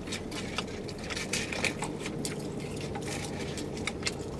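Eating noises in a car: scattered small clicks and rustles of a plastic fork picking fries from a paper tray, and wet sounds of chewing and sipping a drink through a straw, over a steady low hum.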